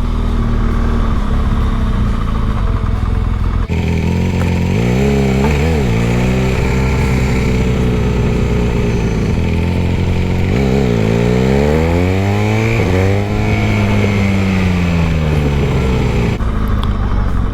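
Motorcycle engine running as the bike is ridden, its revs rising and falling a few times, most clearly in a climb and then a drop in the second half, with a steady rush of noise underneath.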